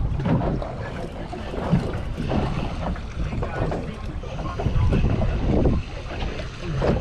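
Wind buffeting the microphone, with choppy water slapping against the hull of a small boat, swelling and easing unevenly.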